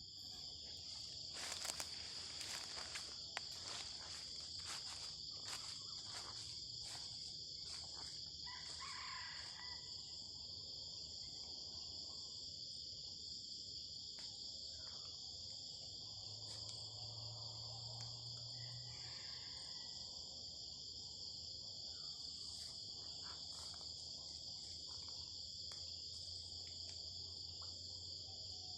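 Steady, high-pitched insect chorus droning without a break, with a run of sharp clicks and knocks over the first several seconds.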